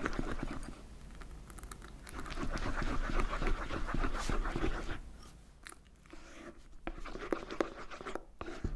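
Silicone spatula stirring thick whipped cream and cream cheese in a ceramic bowl as milk is worked in: a rapid run of wet stirring strokes that turns quieter and sparser about halfway through.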